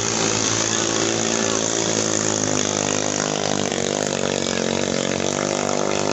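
Small 6.5–8.5 hp single-cylinder engines of ketinting longtail racing boats, running at full throttle. The steady high-revving drone shifts slightly in pitch partway through.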